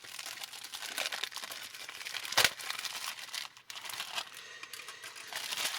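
Plastic parts bags crinkling and rustling as they are handled, with one sharp click about two and a half seconds in.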